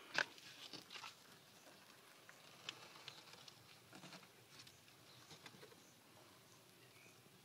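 Faint, scattered footsteps and scuffs on dry earth, with a sharp click just after the start; the taps thin out after about six seconds.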